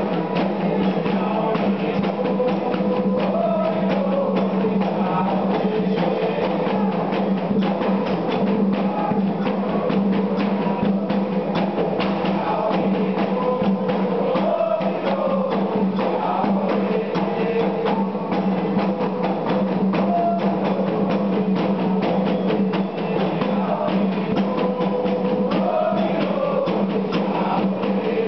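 Candomblé ritual music: atabaque drums beating a fast, steady rhythm, with voices singing over it.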